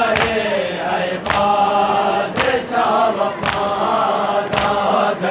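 A crowd of men chanting a mourning lament (noha) together, with a sharp collective slap about once a second. The slaps are hands striking chests in unison (matam), keeping time with the chant.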